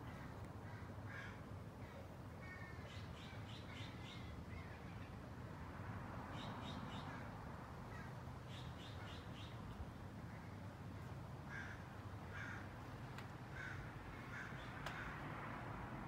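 Faint birds calling outdoors: short runs of quick, high notes repeating every couple of seconds, over a steady low background noise.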